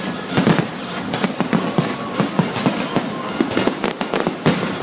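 Aerial fireworks display at its grand finale: a dense, unbroken barrage of bangs and crackles from many shells bursting in quick succession.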